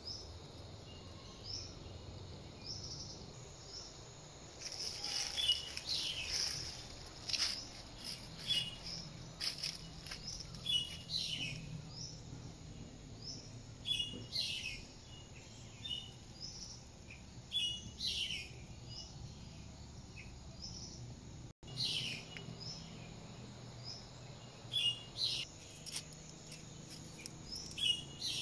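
Wild birds calling in forest: short high chirps and repeated two-note calls, some in quick clusters, over a faint steady background hum.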